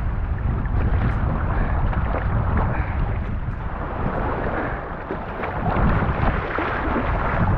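Wind buffeting the microphone over the rush and splash of choppy river water around an inflatable kayak as it is paddled. The noise is steady and dense, heaviest in the low rumble.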